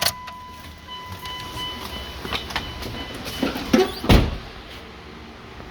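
Steady electronic warning tone from the pickup, stopping about two seconds in, with a higher tone for a while, over a few clicks and knocks of handling; a heavy thump about four seconds in, like a truck door or panel being shut.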